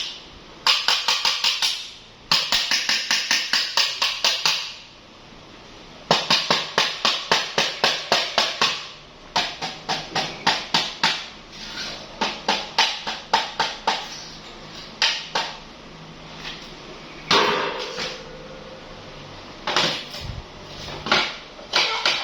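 A screwdriver knocked rapidly against the metal parts of a welding transformer: sharp metallic taps with some ringing, a few per second, in bursts of one to three seconds with short pauses between them.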